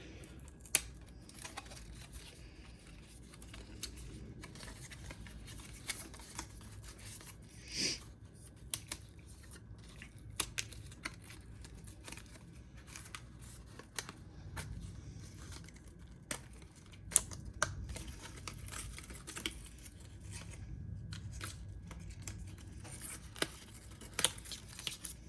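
A cable and its packaging being handled and unwrapped at close range: scattered clicks and taps with soft rustling and a brief swish of paper or plastic.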